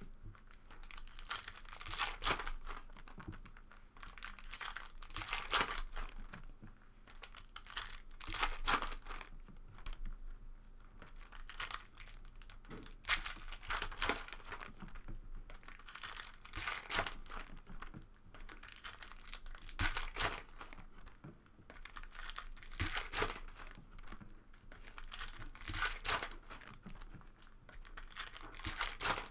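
Foil wrappers of 2017 Panini Contenders football card packs being torn open and crinkled by hand, in repeated bursts of crackling tearing every second or two.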